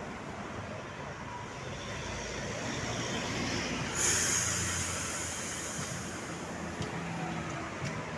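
A large road vehicle, in this setting a bus, running and drawing closer, its sound growing louder. About four seconds in comes a sudden loud hiss that fades over the next couple of seconds as the vehicle goes by.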